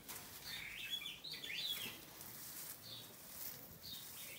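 Small birds chirping: a quick run of short, high chirps with fast pitch slides in the first two seconds, then a few single chirps.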